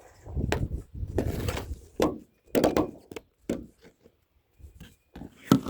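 A series of irregular knocks and thuds, several in quick clusters, the loudest near the end.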